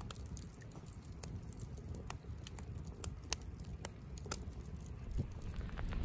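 Wood campfire crackling: burning logs give scattered, irregular sharp pops and snaps over a faint low rush.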